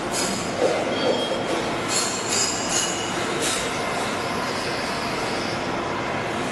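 Circular saw blade grinding machine running, with steady grinding noise and brief high-pitched metallic squeals and hisses during the first few seconds.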